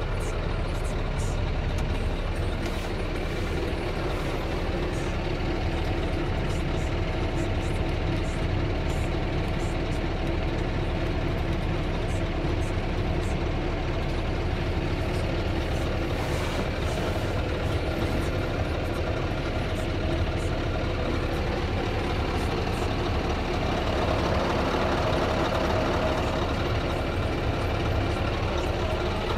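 Scania R truck's diesel engine idling steadily, heard from inside the cab.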